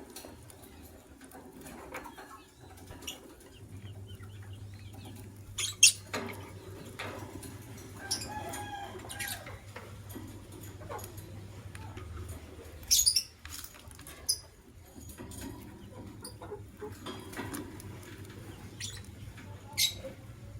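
White lovebirds giving a few short, sharp chirps spaced several seconds apart, the loudest about six seconds in and again around thirteen seconds, with light rustling and wing movement between them over a steady low hum.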